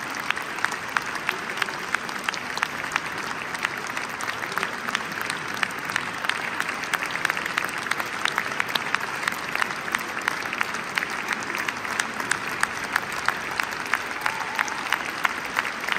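Audience applauding steadily, with many individual sharp claps standing out from the continuous clapping.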